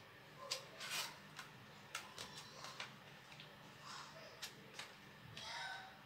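Faint clicks and taps of stiff, uncooked lasagna sheets being picked up and laid into a metal roasting pan, with a soft rustle near the end.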